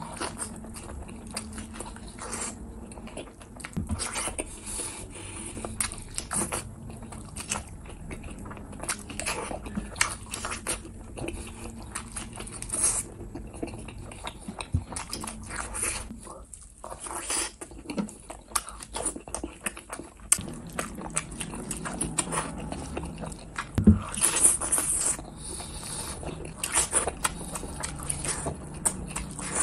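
Close-up chewing and biting of sunny-side-up fried eggs: wet mouth sounds with many short clicks and smacks, a loud smack near the end.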